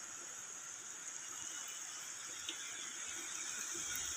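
Steady high-pitched insect chorus, crickets or cicadas in the surrounding forest, chirring without a break.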